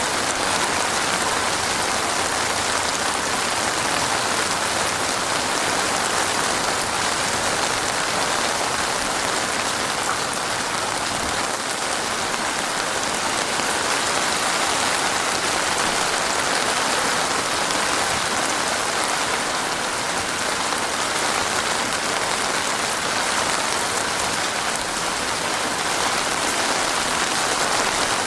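Heavy rain falling steadily, a dense even hiss of drops on surfaces with no let-up.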